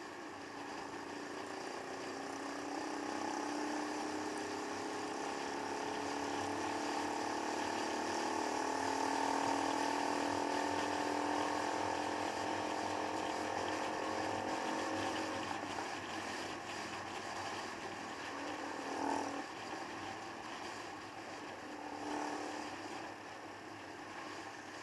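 Keeway Superlight motorcycle engine running under way, its note slowly rising in pitch as it pulls, then falling away about fifteen seconds in. Two short blips of the throttle follow near the end.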